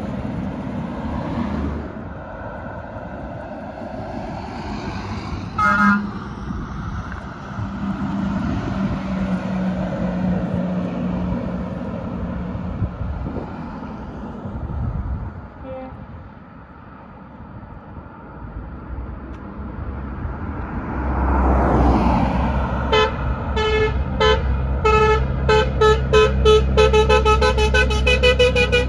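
Heavy trucks running past with a steady engine drone and a single short horn toot about six seconds in. Near the end a truck's engine swells loudly and its horn sounds in a rapid string of short toots that come faster and faster.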